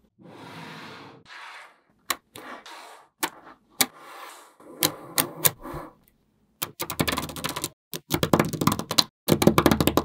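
Small magnetic balls clicking as they snap together one by one. Later come bursts of rapid clattering from many balls at once.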